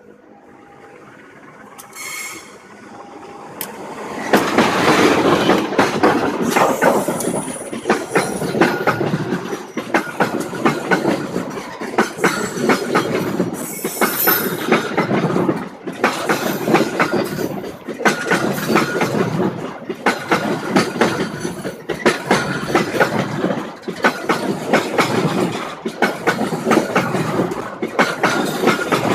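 Railway carriage wheels running over rail joints: loud clickety-clack knocks in groups repeating about every two seconds, starting about four seconds in as the train arrives. Brief high-pitched squeals of wheel on rail cut in a couple of times.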